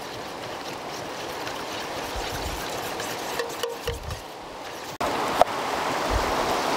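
Metal spoon stirring a thick yogurt marinade in a stainless steel tray over a steady rushing background noise, with a few light clicks. After a cut, a knife taps once on a wooden chopping board about five and a half seconds in.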